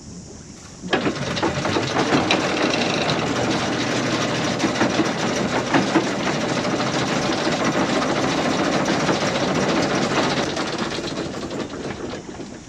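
Anchor chain running out over a yacht's anchor windlass: a loud, dense metallic rattle that starts suddenly about a second in and stops shortly before the end.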